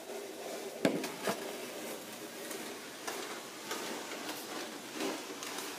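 A child's snow shovel knocking down on a snowy driveway, a sharp clack about a second in and a smaller one just after, then the blade scraping and scuffing through snow.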